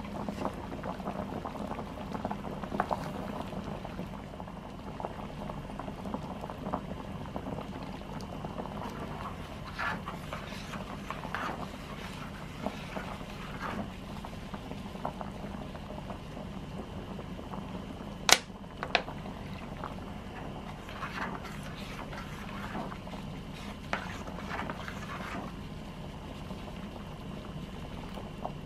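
Thai nam ya curry sauce boiling in a small stainless electric pot, bubbling and popping steadily while a metal spoon stirs it. About two-thirds through, the spoon clinks sharply against the steel pot, followed by a smaller clink.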